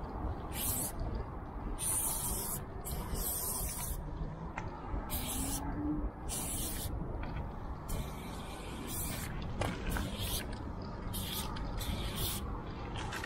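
Aerosol spray-paint can hissing as paint is sprayed onto the ribbed metal side of a train car, in a string of separate spurts of varying length, shorter and quicker in the second half.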